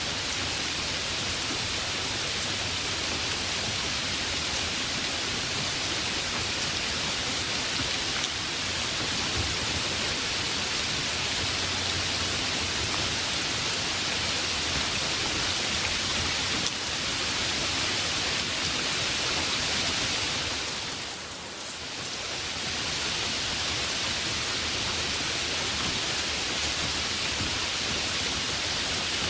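Heavy rain falling steadily: a dense, even hiss, briefly softer for about a second some twenty seconds in.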